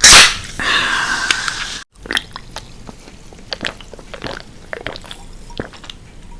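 Close-miked eating sounds. There is a loud sudden crunch-like burst at the start and about a second of steadier sound. After a brief cut, a run of small wet chewing clicks follows.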